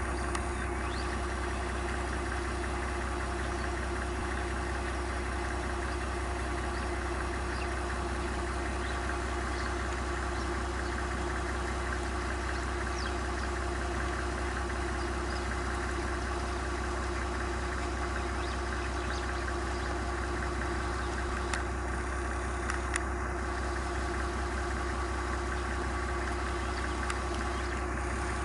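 A vehicle engine idling steadily, an even low hum, with a few faint clicks near the end.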